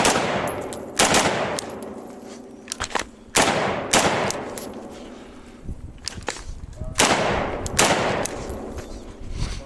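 Gunshots at an outdoor range: three pairs of loud shots, the two in each pair about a second or less apart, each shot trailing off in a long echo, with fainter shots in between.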